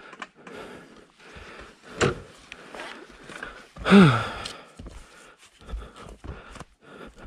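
Dirt bike ridden over rough dirt single track, heard from a rider-mounted camera: irregular knocks and rattles from bumps over a rushing noise. A short falling tone stands out about four seconds in.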